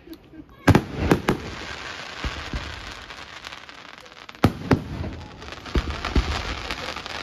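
Aerial firework shells bursting overhead with sharp bangs: three in quick succession about a second in, then four more from about four and a half seconds, with a steady hiss between them.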